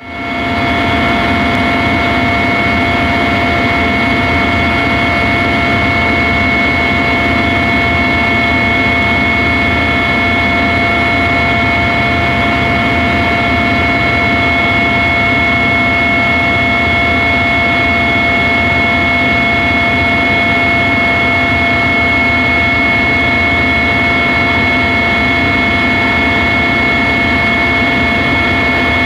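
Helicopter engine and rotor noise heard on board: a steady drone with constant high whining tones, fading in at the very start.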